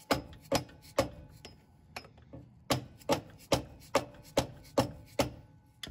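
Hammer striking a metal rod held against a Jeep JL Wrangler's transfer case output flange, tapping the factory flange loose. About a dozen sharp metal taps come two to three a second, with a short pause about two seconds in.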